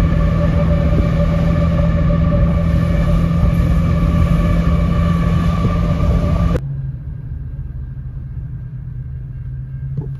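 Steady, loud rumble and whine of a Canadian National freight train's diesel locomotives, heard from a car pacing alongside, mixed with wind and road noise. It cuts off suddenly about two-thirds of the way through, leaving a quieter, steady hum inside the car.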